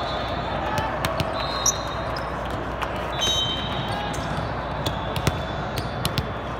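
Busy volleyball tournament hall: a steady murmur of many voices, with sharp ball hits and bounces from the surrounding courts and a few short high-pitched squeaks.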